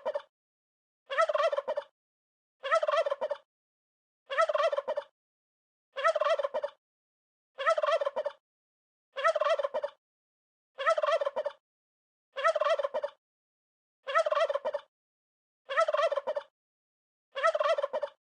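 Turkey gobbling over and over: about a dozen short gobbles, evenly spaced about every one and a half seconds, each alike, with dead silence between them.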